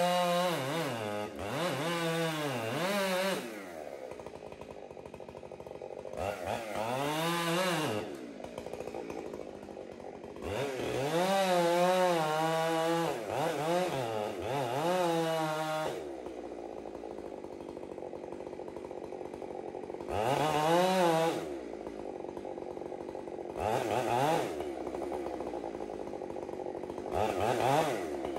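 Two-stroke chainsaw revving in repeated bursts and dropping back to idle in between. During the longest burst, a few seconds in, the pitch wavers up and down.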